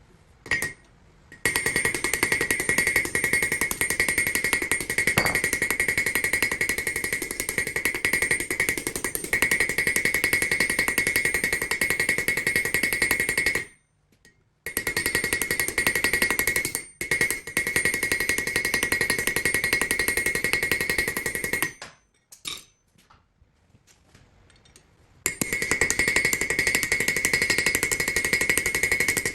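Mechanical power hammer pounding in fast, continuous runs with a steady high ring, stopping twice briefly.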